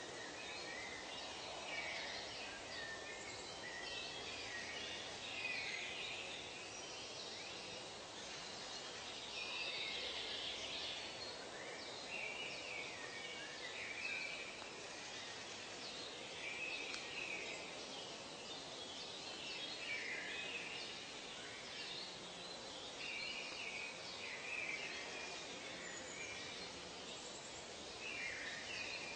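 Birds calling and singing, many short chirps overlapping throughout, over a steady background hiss.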